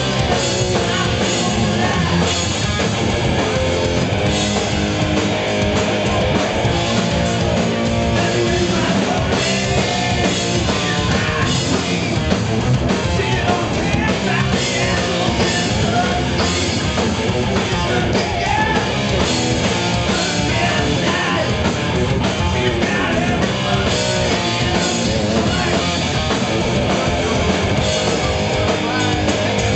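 A rock band playing live and loud: electric guitars, electric bass and a drum kit.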